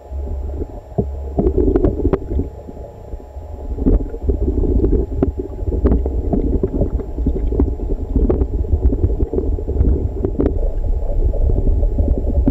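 Underwater sound of a piranha (Pygocentrus cariba) feeding frenzy: a steady low rumble of moving water with many irregular short knocks and clicks as the fish strike and bite at a carcass and bump against the camera.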